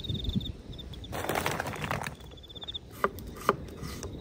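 Two sharp knocks of a knife chopping on a wooden cutting board a little before the end. Earlier there is a rapid, high-pitched pulsing trill, twice, and a brief rush of noise in between.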